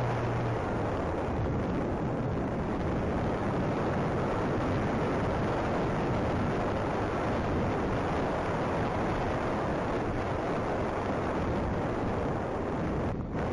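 Steady rushing and buffeting of wind on a camera microphone mounted under the wing of a flying RC model airplane.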